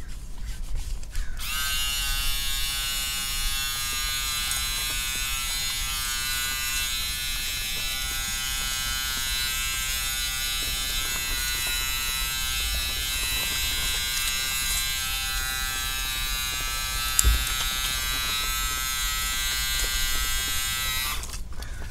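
Small handheld battery-powered (AA) camping shower pump running steadily with a whine as it pumps water out through its shower head. It switches on about a second and a half in and off just before the end, with one brief knock about 17 seconds in.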